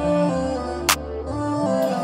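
Music with no singing: held instrumental notes over a slow beat, with one sharp percussion hit about a second in.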